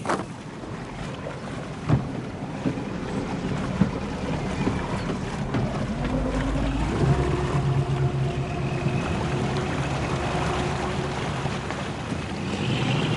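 Fishing boat's engine running, its pitch rising over a couple of seconds about midway as it revs up, then holding steady. A single knock about two seconds in.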